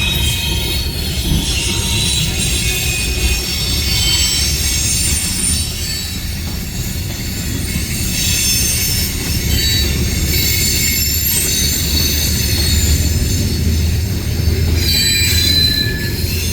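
A passing train: a steady, heavy low rumble of the rolling cars, with high thin squealing from the wheels on the rails.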